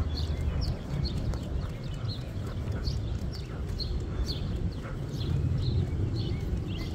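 A person's and a dog's footsteps walking on a concrete sidewalk, with light ticks about two or three times a second, over a steady low rumble.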